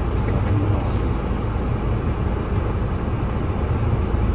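Steady low rumble of a car heard from inside the cabin, its engine running.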